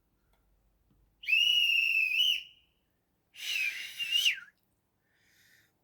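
Guard's whistle sound effect played by the DCC sound decoder of an Accurascale Deltic model locomotive: two shrill blasts, the first steady and the second slightly warbling.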